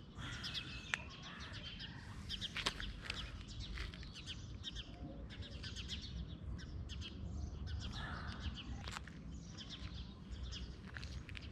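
Small birds chirping in many short, quick calls, over a low steady rumble, with a few sharp clicks.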